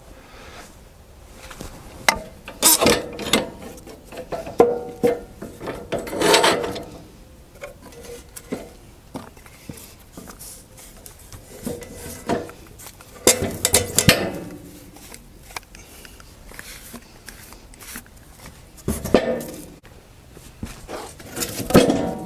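Irregular knocks, clatters and scrapes of wood being handled, a few louder bangs in between.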